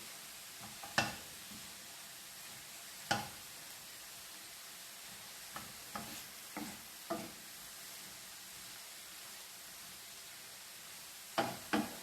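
Shredded vegetables sizzling in a frying pan with a steady faint hiss, while a spoon stirs them and knocks against the pan several times, twice in quick succession near the end.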